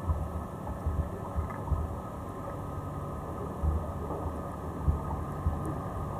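Muffled underwater noise picked up by an action camera during a dive descent: a low, steady rumble of water moving past the rig, with irregular soft low thumps.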